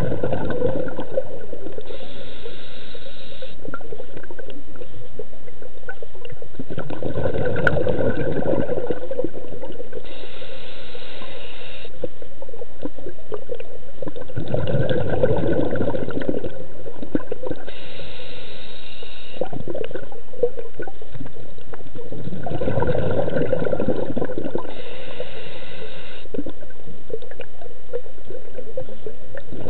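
A scuba diver breathing through a regulator, heard underwater: a short hiss on each inhale and a burst of bubbling on each exhale, repeating about every seven to eight seconds.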